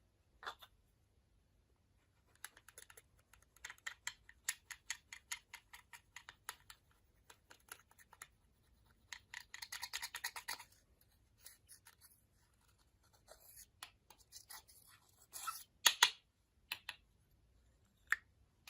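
Slime mixed with makeup being worked by hand: a fast run of small sticky clicks and crackles, a thicker scratchy stretch about halfway through, then scattered clicks with two louder snaps near the end.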